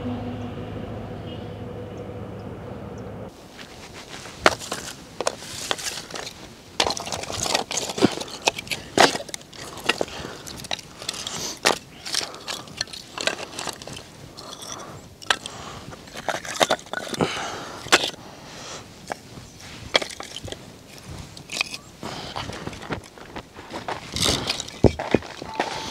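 Split firewood sticks clattering and knocking against each other as they are handled and laid out on the ground, in many irregular sharp clacks. Before that, a steady hum fades and cuts off about three seconds in.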